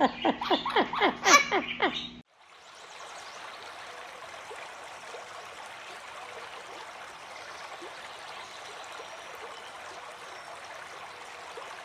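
A quick run of laughter, about seven falling "ha"s in two seconds, that cuts off abruptly. It gives way to a steady trickle of water running at a beaver dam.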